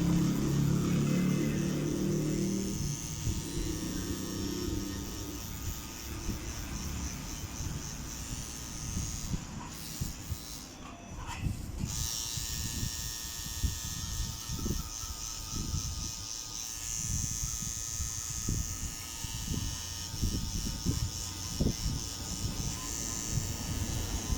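Electric tattoo machine buzzing steadily as it works, stopping for a couple of seconds around the middle and then starting again.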